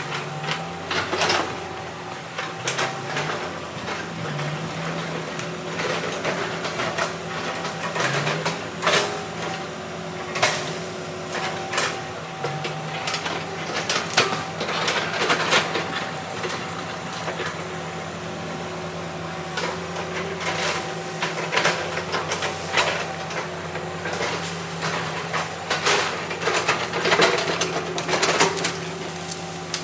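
Diesel engine of heavy earth-moving machinery running steadily, its pitch stepping up and down now and then, with repeated knocks and clanks throughout.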